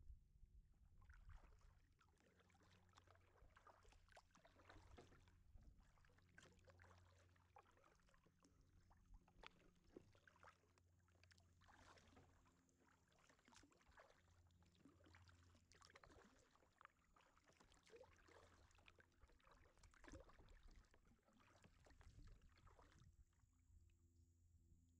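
Faint splashing and dripping of a kayak paddle dipping into the water stroke after stroke, stopping shortly before the end.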